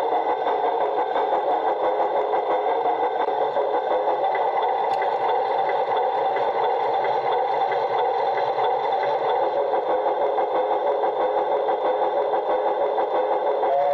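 Motor and gearing of an LGB model of the HSB Mallet steam locomotive running along the track: a steady mechanical whir with fast, fine ticking.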